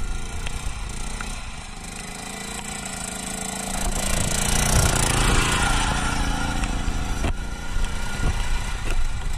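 Small lawn tractor engines running as off-road mowers drive on gravel. One comes close about four to six seconds in, its engine and tyre noise getting louder, then easing off.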